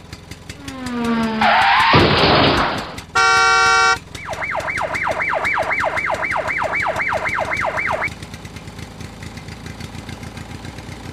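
Edited-in sound effects. A rising sweep runs into a loud burst of noise, then comes a short steady horn blast, then a warbling alarm-like siren cycling about three times a second for some four seconds. All of it sits over a steady fast engine chugging, which carries on alone near the end.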